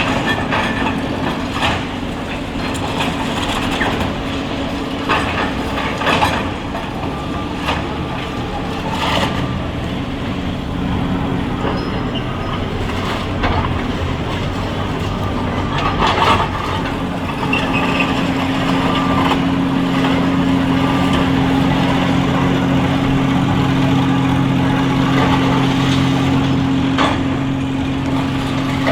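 Excavator diesel engine running, with repeated sharp clanks and crunches of demolition work through it. About 17 seconds in, the engine note becomes steadier and a little louder.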